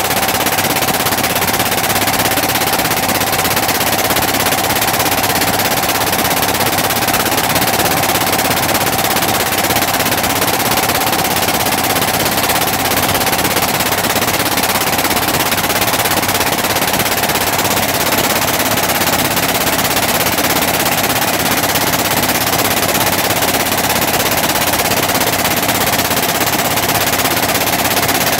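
A river boat's engine running loudly and steadily under way, a fast, even chugging with a constant tone over it.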